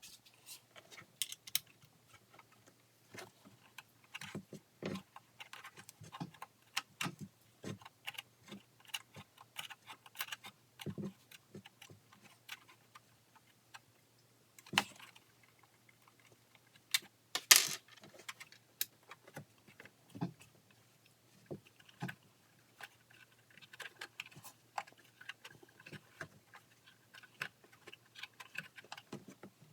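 Irregular metallic clicks and clinks from hand tools backing Allen-head bolts out of a box in a jet ski's engine bay, with two or three louder clanks past the middle.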